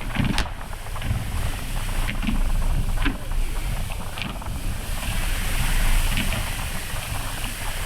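Wind buffeting a phone microphone on the deck of a moving cruise boat, over the boat's low running rumble and water noise, with a few faint sharp cracks, about half a second, three and four seconds in.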